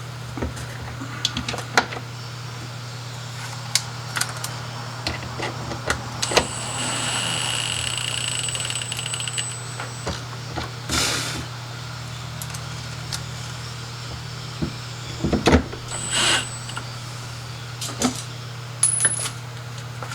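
Parts of a washing-machine drain pump being handled and fitted: scattered small clicks, clinks and knocks over a steady low hum, with a stretch of hiss and a thin high tone about six to ten seconds in and a few louder knocks near the three-quarter mark.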